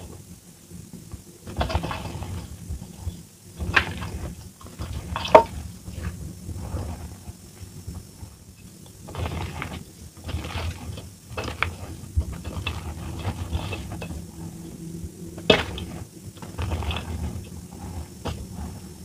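Hands squeezing and crushing soft reformed blue gym chalk and loose chalk powder in a steel bowl: an uneven stream of soft, crumbly crunches with a few louder cracks, played back at double speed.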